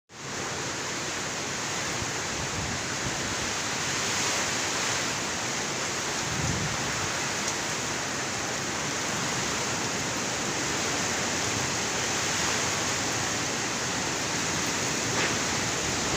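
Heavy rain and strong wind of a super typhoon: a dense, steady rush of noise with no let-up.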